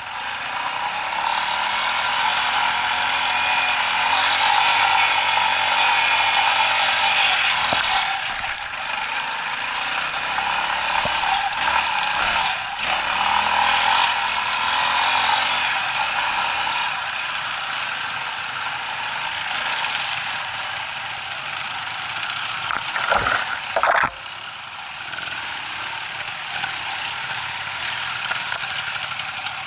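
Dirt bike engine running at low revs over rough ground, with mechanical rattling and a few sharp knocks; the loudest knocks come close together about three-quarters of the way through.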